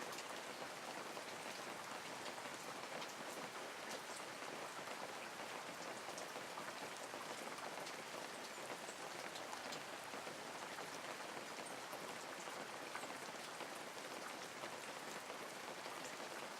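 Steady rain falling, an even hiss with many single drops ticking through it.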